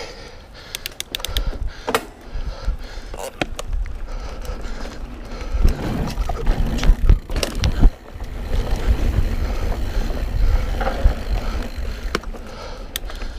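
Mountain bike rolling along dirt singletrack: tyres on the trail with clicks and rattles from the bike. Sharp knocks come in the first few seconds, then a steadier, louder low rumble from about five seconds in.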